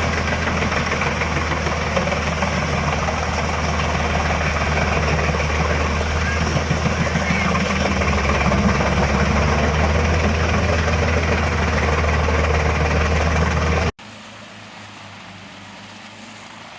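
HEM 821 Cobra hybrid drum chipper running under load, a steady low engine drone with a dense crackling rush of logs being shredded into chips. About fourteen seconds in it cuts off suddenly to a much quieter, steady machine hum.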